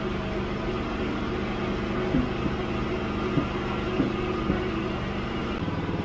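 Norwood LumberPro HD36 bandsaw mill's engine idling steadily, with a handful of light knocks in the middle.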